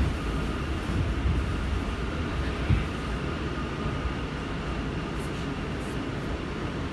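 NYC Subway R179 car running along the track, heard from inside the car: a steady low rumble of wheels on rail with a faint steady whine above it and an occasional thump.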